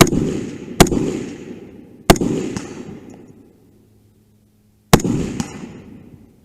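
Four gunshots fired at an uneven pace, each ringing out in a long echo. The first three come within about two seconds, then there is a pause of nearly three seconds before the fourth. Another shot comes at the very end.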